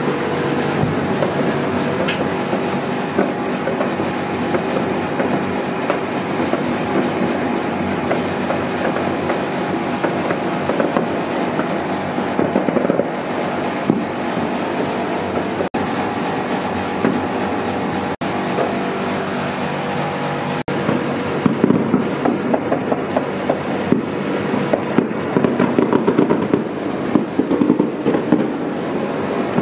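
Many fireworks and firecrackers going off at once, a dense, continuous crackle of overlapping pops, growing louder with sharper bangs in the second half.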